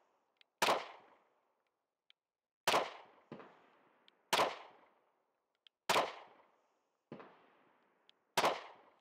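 Five shots from a Smith & Wesson M&P Shield Plus 9mm pistol, fired slowly about two seconds apart, with faint metallic pings from hanging steel targets being hit between them.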